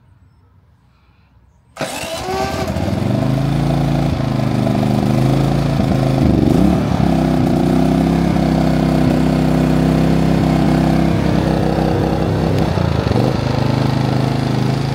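Genmax GM4600iAEFIC inverter generator's 159cc four-stroke fuel-injected engine starting on the electric push-button start: it catches suddenly about two seconds in and then runs steadily, its pitch dipping briefly a couple of times as it settles.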